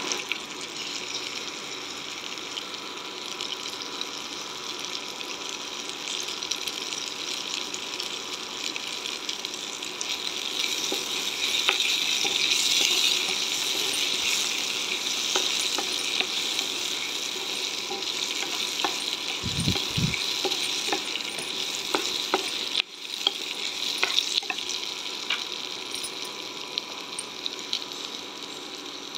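Slit green chillies sizzling in hot oil in a pan, stirred with a wooden spatula that clicks and scrapes against the pan. The sizzle grows louder about a third of the way in, and two dull low thumps come about two-thirds through.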